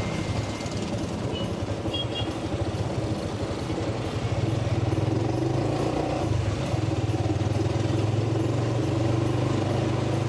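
Motorcycle engine of a passenger tricycle (motorcycle with sidecar) running as it rides through town traffic, heard from the sidecar, getting louder about four seconds in.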